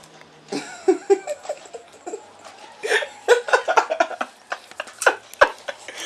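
People laughing and giggling in short bursts, thickest in the second half.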